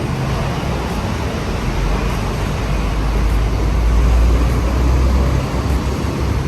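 Steady vehicle and traffic noise, a low rumble that swells in the middle and eases again.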